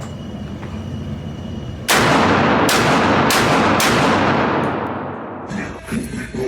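Four gunshots in quick succession, spread over about two seconds, each ringing out with a long echo that fades over the next second or so.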